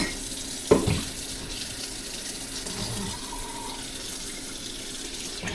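Water tap running steadily into a sink, with a single knock about a second in.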